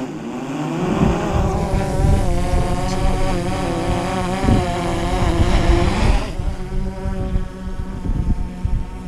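DJI Mavic Pro quadcopter's propellers spinning up with a rising whine as it takes off, then a steady buzzing hover. A little after six seconds the buzz drops lower and quieter.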